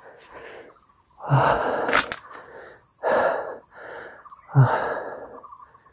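A person breathing hard after exertion, with three loud breaths about a second and a half apart and softer breaths between them. A steady high insect chirr runs underneath, and there is one sharp click about two seconds in.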